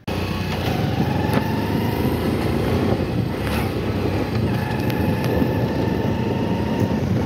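Motorcycle running while being ridden, heard from on the bike as a steady, loud low noise.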